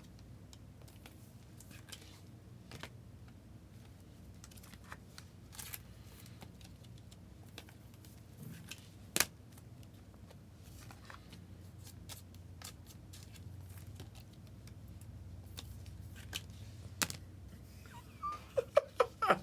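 Trading cards and their packaging being handled: scattered faint clicks and rustles, with one sharper click about nine seconds in and a quick run of sharp sounds near the end, over a low steady hum.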